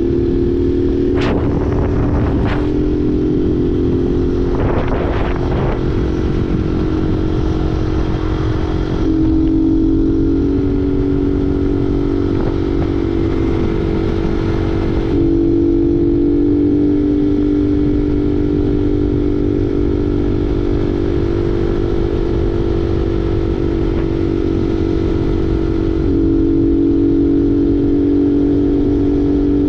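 Honda Fan 125's single-cylinder four-stroke engine running with an open 'vareta' exhaust and no air filter, a steady loud drone whose note shifts a few times, as at gear changes or throttle changes while riding. A couple of sharp clicks sound in the first few seconds.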